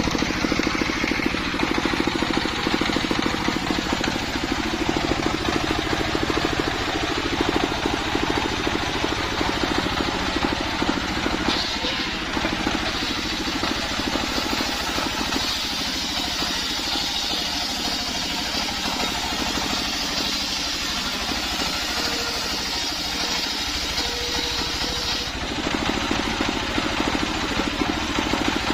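Belt-driven circular sawmill bench running on its stationary engine: a steady mechanical drone with fine rapid pulsing. From about twelve seconds in until a few seconds before the end, a brighter hiss joins it as the blade cuts through a sengon log.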